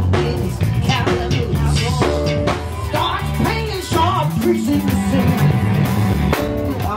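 Live southern soul music: a band with drums, bass and guitar, with singing over it.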